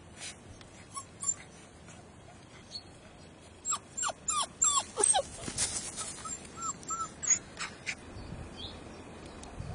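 Bearded Collie puppy whimpering: a quick run of about five short yelps, each falling in pitch, about four seconds in, then a few softer whines.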